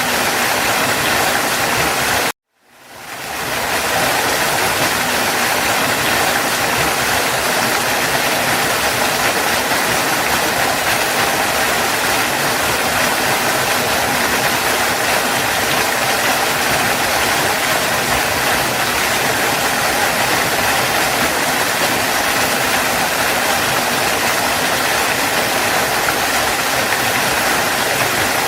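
Waterfall water rushing steadily. It cuts out for an instant about two seconds in, then fades back up over about a second.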